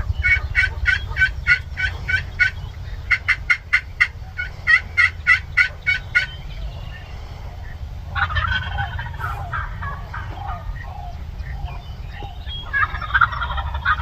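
Wild turkeys calling. A run of evenly spaced yelps, about four to five a second, comes in two series over the first six seconds. A rattling gobble follows about eight seconds in, and another near the end.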